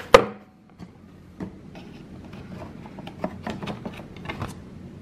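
Cardboard box of plates being opened and handled: one sharp knock just after the start, then light rustling and scattered small taps of cardboard and packaging.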